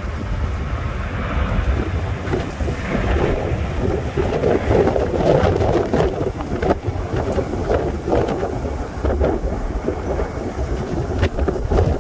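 Strong wind buffeting the microphone in gusts, over the rushing roar of a jet airliner's engines as it moves along the runway. The jet roar swells for a few seconds in the middle.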